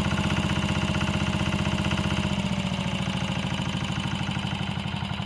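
Ruggerini RD901 single-cylinder diesel on a Goldoni Special 144 two-wheel tractor, running with a steady fast beat. About two and a half seconds in the revs drop and it settles to a slower idle.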